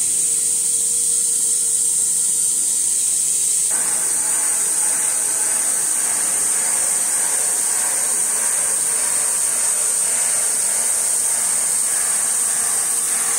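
Steady workshop machinery noise: a loud, constant high-pitched hiss, with a broader rushing noise joining about four seconds in and running on steadily.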